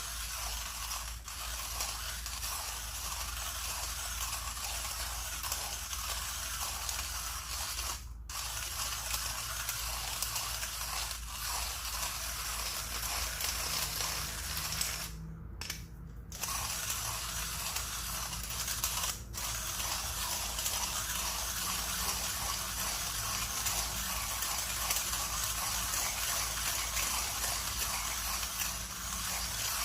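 Millwright hand coffee grinder being cranked, its burrs crushing coffee beans at an espresso setting in a steady gritty grind. The grinding stops briefly a few times, about a quarter of the way in and again around the middle.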